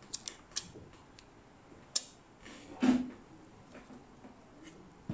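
Handling noises: several light clicks and taps as the polyimide flex cable and circuit board are moved by hand, with a louder knock about three seconds in.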